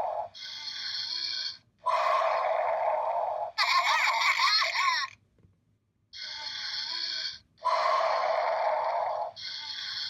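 Electronic sound effects and music snippets from the Mega Bloks Three Little Pigs playset's built-in sound unit, played one after another as short clips of about a second and a half each, with a brief pause about five seconds in.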